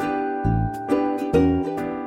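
Background music: a light, bouncy tune of plucked strings like a ukulele over a steady bass beat.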